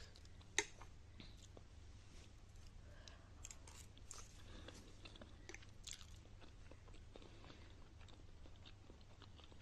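Faint chewing and mouth sounds of a person eating, with scattered soft clicks and one sharp click about half a second in, over a faint low hum.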